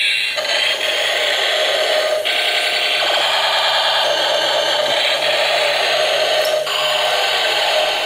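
Battery-powered toy attack helicopter running: its small motor and gears whir as the rotor spins, under loud, tinny electronic sound effects from its built-in speaker that switch pattern every couple of seconds.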